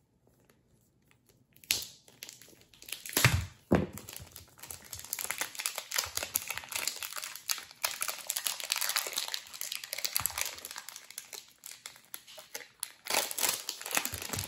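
Plastic packaging crinkling and rustling as a speedcube's shrink-wrapped box is cut open and the cube is pulled out of its clear plastic bag. A few sharp clicks and knocks come in the first four seconds, then dense crackling, louder again near the end.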